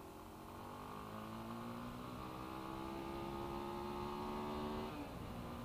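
Honda TRX400X quad's single-cylinder four-stroke engine pulling hard, its pitch climbing steadily, then dropping suddenly about five seconds in as it shifts up a gear.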